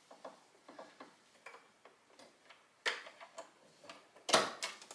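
Small plastic clicks and ticks as a bobbin is slid into the bobbin case of a Baby Lock Brilliant sewing machine and handled into place, with a louder cluster of sharp clicks a little after four seconds in.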